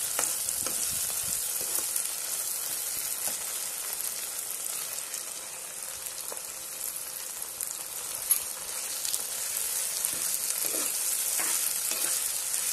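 Chopped onions, green chillies and tomatoes sizzling in hot oil in a nonstick kadai, a steady frying hiss. A steel slotted spoon stirs them now and then with short scrapes and clacks against the pan, the sharpest about eight seconds in.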